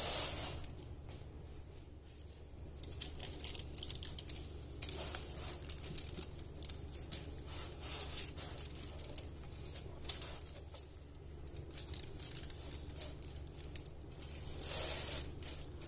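Aluminium foil lining a baking tray crinkling and rustling as hands press and tuck a coiled filo-pastry börek, with soft patting of the oiled dough. The rustling comes in small irregular crackles, louder near the start and again about a second before the end.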